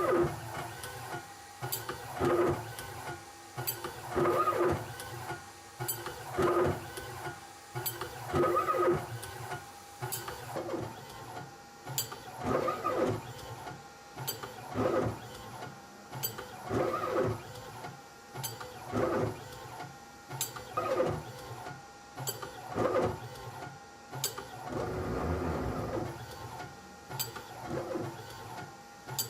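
CNC machine's stepper motors driving the axes in short moves, a whining buzz that starts and stops about every two seconds, with one longer, lower move near the end.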